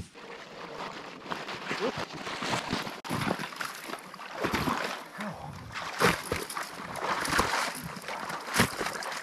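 Waders stomping and kicking through a shallow pond skimmed with thin ice to break it up: irregular splashing and sloshing of water with broken ice.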